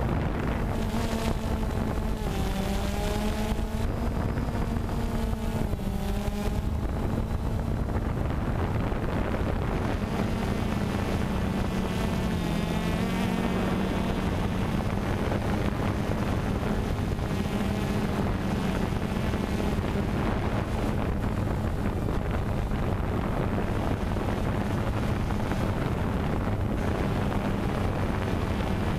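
DJI Phantom 2 quadcopter's motors and propellers buzzing steadily in flight, heard close up from the camera on the drone, the pitch wavering as it manoeuvres. Wind noise on the microphone underneath.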